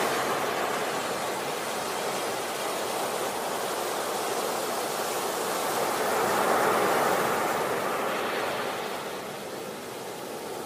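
Ocean surf: waves breaking and washing in, a steady rushing noise that swells about six to seven seconds in and eases off near the end.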